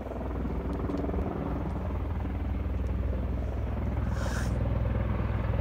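Propeller engine of a small aircraft flying over, a steady low drone that grows slowly louder as it approaches.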